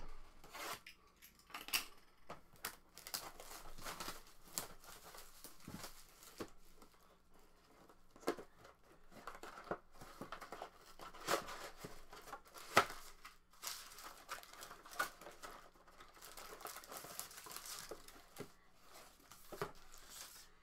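A sealed box of football trading cards being opened by hand: packaging and cardboard tearing and crinkling, with scattered clicks and rustles.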